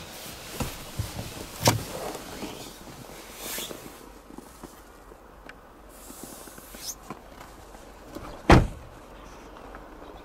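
Opel Mokka rear door clicking open, then shut with a heavy thump near the end. Rustling and a few footsteps come in between as someone climbs out of the back seat.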